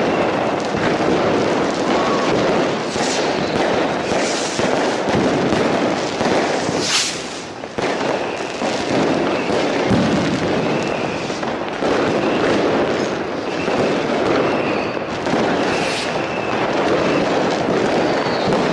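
New Year's fireworks going off densely: continuous crackling and banging of many firecrackers and rockets, with short whistles now and then and a loud hiss about seven seconds in.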